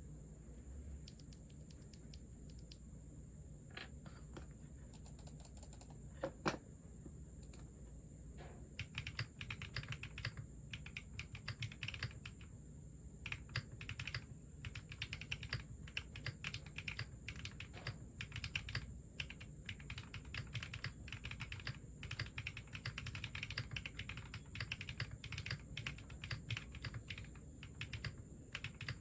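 Typing on a Zoom65 mechanical keyboard fitted with HMX Hyacinth V2U linear switches: a few scattered keystrokes at first, then steady, fast typing from about eight seconds in.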